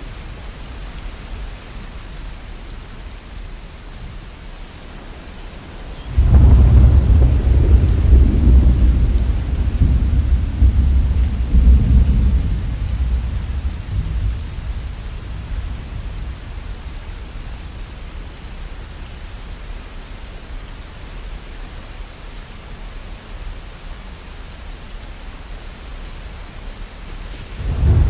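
Heavy rain falling steadily. About six seconds in, a loud clap of thunder breaks in with a deep rumble that rolls away over the next several seconds, and another thunderclap begins right at the end.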